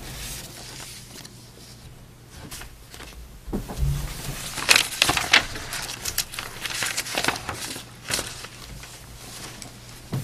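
Sheets of paper rustling and being shuffled and turned at a table, in a flurry of crackly bursts mostly in the middle stretch, over a steady low hum.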